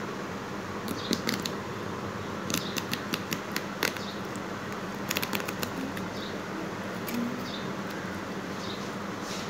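Cardboard tear strip of a chocolate box being pulled open along its perforated edge: three short runs of sharp ripping clicks, over a steady background hum.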